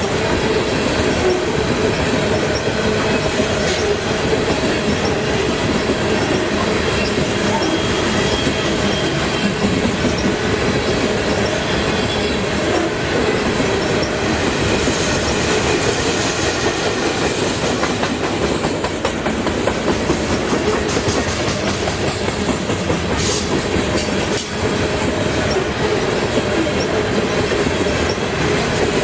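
Railroad cars rolling past close by: a steady, loud rumble of steel wheels on rail, with clickety-clack over the rail joints and faint thin squeals from the wheels.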